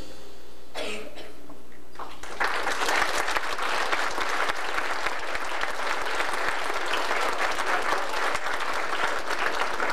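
Audience applauding a choir that has just finished a piece, the clapping starting about two and a half seconds in and carrying on steadily.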